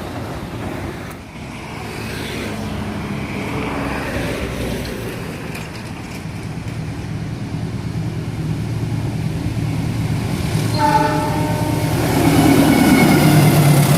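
CC 206 diesel-electric locomotive running. About eleven seconds in, its horn starts and sounds louder from about twelve seconds on.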